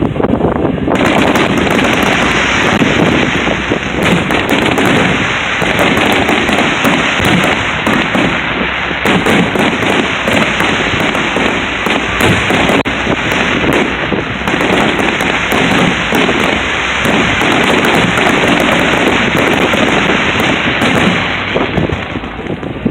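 Aerial fireworks going off in a dense, unbroken barrage: overlapping booms with a constant rattle of crackling bursts, starting abruptly about a second in.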